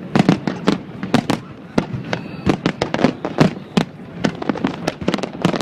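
Fireworks going off in rapid, irregular succession, several sharp bangs a second.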